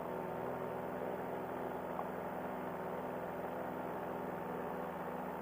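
Paramotor engine running at a steady pitch in flight, low in level behind the pilot's microphone.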